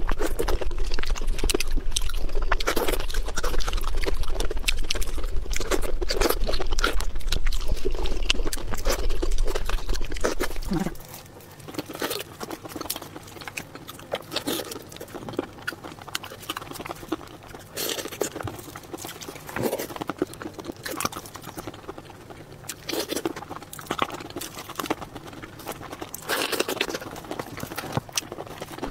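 Close-up mouth sounds of someone eating raw shrimp: repeated wet smacks, sucking and chewing. A steady low hum sits under the first part and stops suddenly about eleven seconds in.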